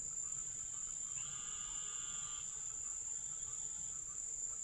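Steady high-pitched insect chirring of a forest's ambience, with a faint drawn-out call about a second in.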